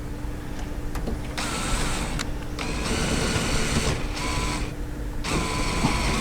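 Cordless power drill/driver running in about four short bursts with a steady motor whine, starting a little over a second in, as it drives bolts or screws during the coop's assembly.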